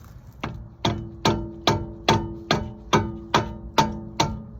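Rubber mallet hammering on a towel-covered Honda Civic CV axle end, a steady run of about two and a half blows a second, each with a short ring from the metal: knocking the axle shaft back through the wheel hub.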